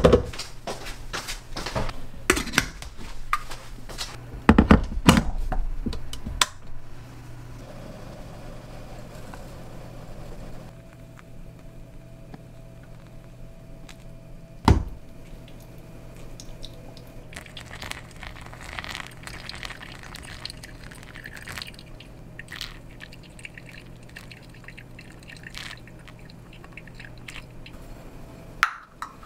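Hand pour-over coffee brewing: a few knocks and clinks as the kettle and carafe are handled in the first seconds, then hot water poured in a thin stream from a gooseneck kettle onto coffee grounds in a stainless mesh filter, trickling and dripping into a glass carafe. A faint steady hum runs under it.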